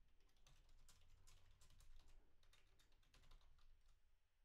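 Faint, irregular keystrokes on a computer keyboard as a sentence is typed, thinning out shortly before the end.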